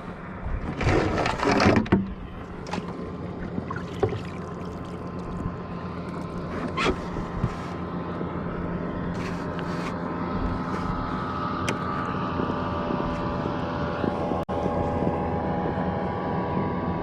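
Motorboat engine running steadily at a distance, its hum slowly growing louder, with a brief loud rustle about a second in and a few light clicks.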